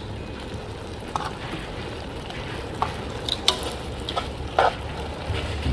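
Kangkong (water spinach) sizzling as it stir-fries in a nonstick pan, with a few short clicks and scrapes of the stirring utensil against the pan.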